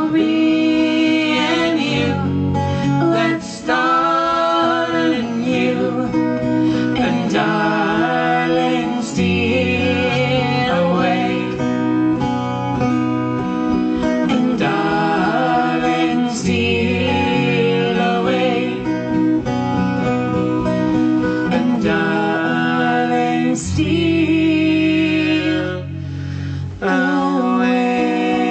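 A recorded song playing: band music led by guitar over a steady bass line.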